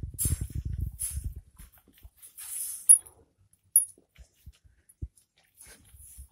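A dog licking and chewing sauerkraut off a wooden floor: a busy run of quick licking and chewing sounds for the first second and a half, then only scattered small clicks and smacks.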